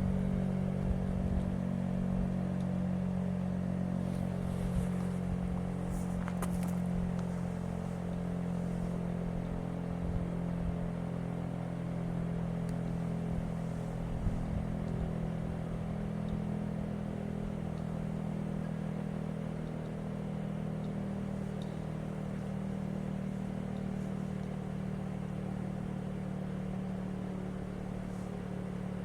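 A steady low mechanical hum, a stack of even tones that holds its pitch while fading slightly.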